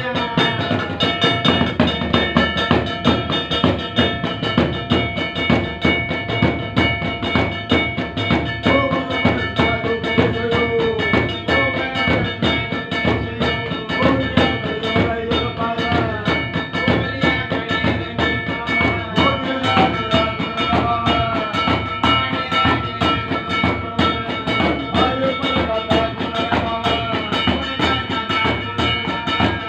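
Music with a steady, fast drum beat and a wavering melody line over held tones.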